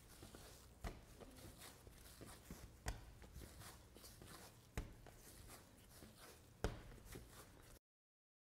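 Sourdough bread dough being kneaded by hand on a tabletop: faint, with four soft thuds about two seconds apart as the dough is pushed and folded against the table.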